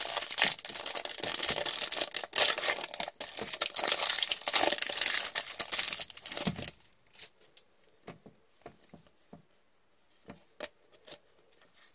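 Foil hockey card pack being torn open, its wrapper crinkling and crackling, which cuts off about six and a half seconds in. After that come faint scattered ticks as the stack of cards is handled.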